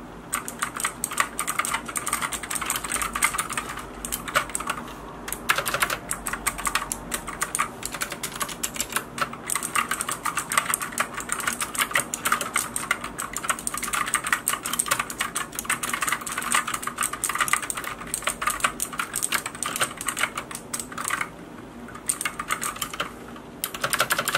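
Fast typing on a Monstargear MK308 gaming mechanical keyboard fitted with clicky Gateron optical blue switches: a dense stream of sharp key clicks, with a short lull about five seconds in and another near the end.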